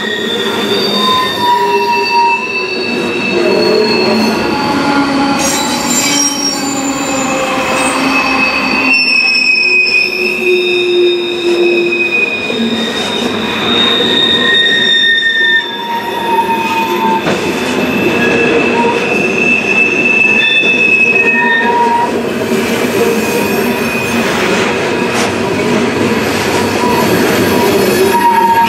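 Freight train of open-top hopper cars rolling past close by, its steel wheels squealing against the rails in several high-pitched tones that come and go and shift in pitch over a steady rumble.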